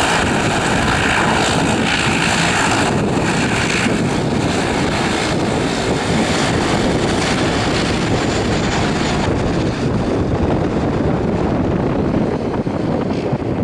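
Bombardier Global Express business jet on landing approach, its twin rear-mounted Rolls-Royce BR710 turbofans giving a loud, steady jet rush as it passes close. The high hiss thins out over the last few seconds as it flares over the runway to touch down.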